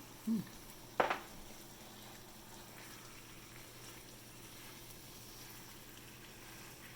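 Chicken cooking in a large pan, a faint steady frying sizzle, with one sharp knock about a second in.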